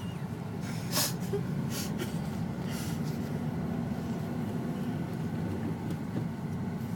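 Steady low hum of a manual-transmission car driving along, engine and road noise heard from inside the cabin, with a few short noises in the first three seconds.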